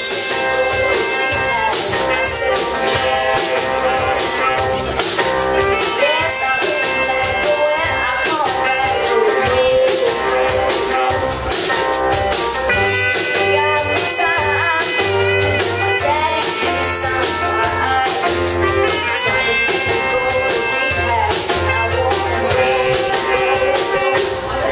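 A live band playing with a woman singing. Saxophone, electric guitar, bass guitar, keyboard and drum kit play a steady beat, with long held saxophone notes.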